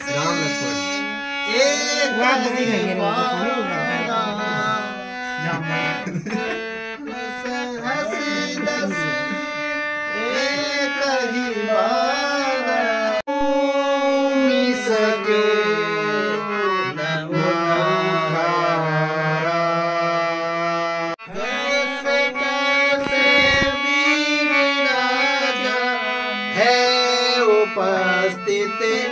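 Harmonium playing sustained reed chords and a melody, with a voice singing along in wavering, ornamented lines. The music breaks off sharply and resumes twice.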